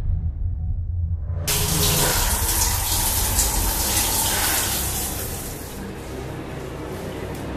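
Water running hard in a bathroom, starting abruptly about one and a half seconds in and easing off near the end, over a low steady drone.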